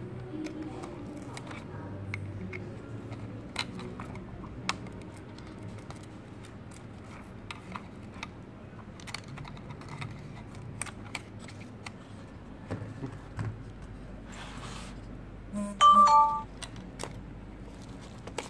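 Scattered small clicks and taps of hands handling a car head unit's plastic frame, circuit board and ribbon cables, over a low steady hum. About 16 seconds in comes a brief, louder two-note tone.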